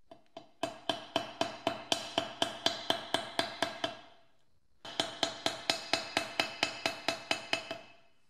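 A hammer tapping metal rapidly, about six blows a second, each blow ringing briefly. There are two runs of blows with a short pause between them.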